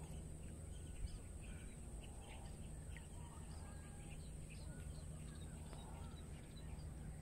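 Quiet outdoor riverside ambience: faint, scattered short bird chirps over a low steady rumble, with a small tick about a second in.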